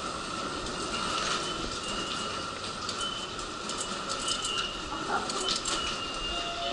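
Busy railway station concourse: crowd footsteps and bustle, with short high electronic beeps from the automatic ticket gates as passengers tap through, several times.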